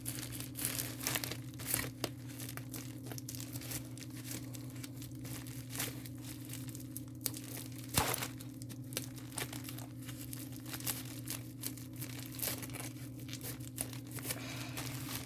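Packaging being handled and pulled open by hand: irregular crinkling and tearing, with a sharper crackle about halfway through, over a steady low hum.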